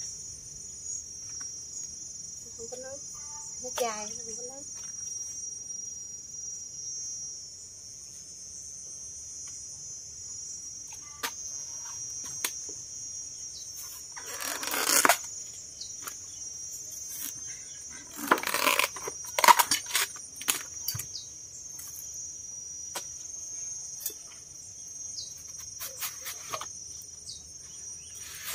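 Steady high chirring of insects, likely crickets, all the way through. Two loud rough tearing rustles, about a second each, come around the middle; these are the outer sheaths being stripped off a young banana trunk.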